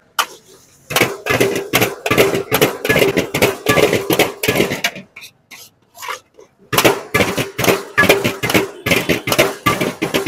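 Metal ladle clanking and scraping against a large iron wok as vegetable fried rice is stir-fried, in quick rhythmic strokes of several a second. The strokes let up for a moment a little past the middle, then start again.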